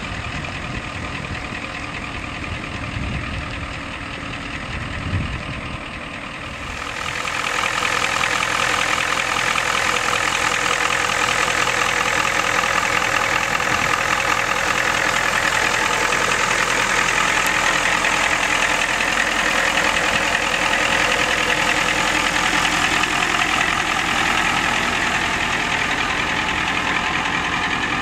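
1993 Ford F-350's engine running. At first there is a low rumble as the truck moves across gravel. From about seven seconds in it turns louder and brighter: the engine idling steadily with the hood open.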